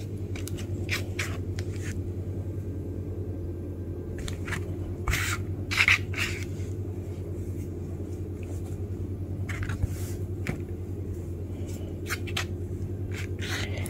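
Soft sourdough dough being stretched, folded and pressed by hand on a floured plastic cutting board: scattered soft pats, squishes and rubs, the firmest a little past the middle. A steady low hum runs underneath.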